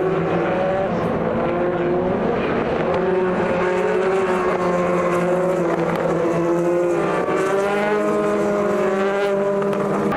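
Several race car engines running at speed on the circuit, overlapping one another, their pitches climbing and dropping as the cars accelerate, shift and pass.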